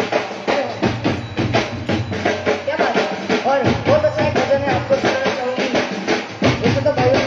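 Devotional bhajan music: a steady drum beat, joined about halfway through by a bending melody line.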